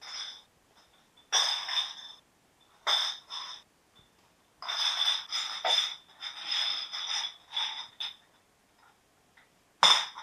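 Black plastic garbage bag rustling and crinkling as it is handled and carried, in irregular bursts of a second or so, with a longer stretch in the middle.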